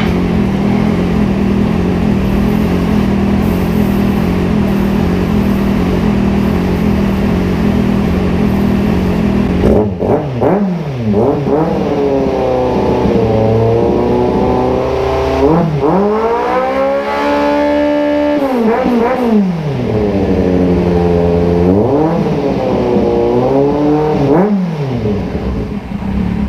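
Motorcycle engine fitted with an Akrapovič aftermarket exhaust, idling steadily, then revved from about ten seconds in: a series of throttle blips, the pitch rising and falling, with a couple of longer held revs in between.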